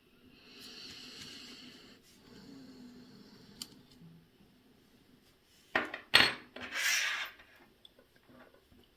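Small metal tools and watch parts handled on a workbench: soft scraping and rubbing, then a few sharp metallic clinks a little before halfway through the second half, followed by a short scraping burst.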